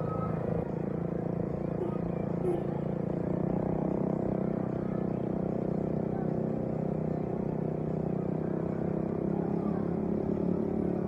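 A motor vehicle engine running steadily, a low, even hum that does not rise or fall.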